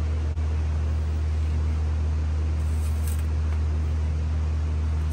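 Steady low mechanical hum, even and unchanging.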